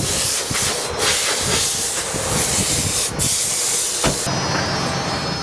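High-pressure water spraying a car, a loud steady hiss with brief breaks about a second in and about three seconds in; the spray cuts off about four seconds in.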